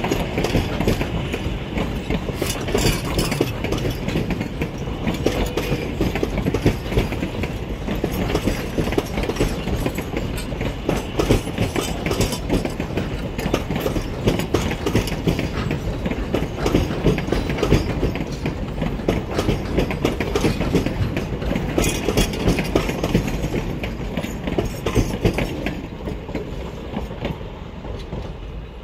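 Narrow-gauge passenger cars rolling past, their wheels clattering and clacking over the rail joints. The sound fades near the end as the last cars go by.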